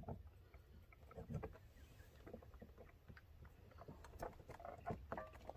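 Faint scattered clicks and light taps of plastic door-handle trim parts being handled and pressed into place.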